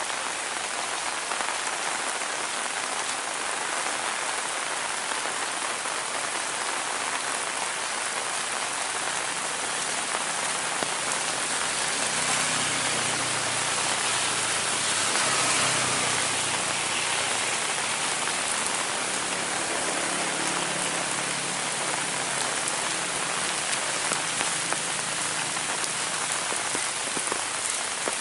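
Heavy rain falling steadily on surfaces, a dense, even hiss of countless drops.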